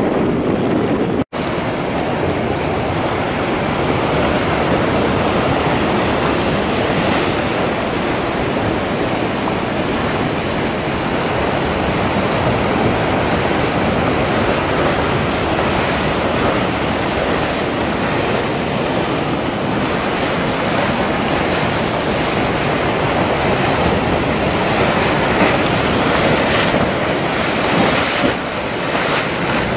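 Sea surf and breaking waves rushing steadily, with wind buffeting the microphone, which grows stronger near the end. The sound cuts out for an instant about a second in.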